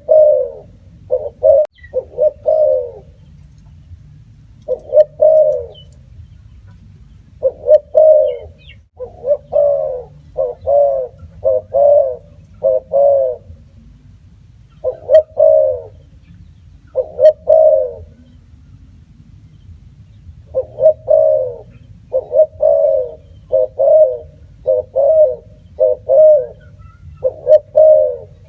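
Spotted dove cooing: low, mellow coos in short phrases of two to several notes, repeated with pauses of a second or two between phrases, over a faint steady low hum.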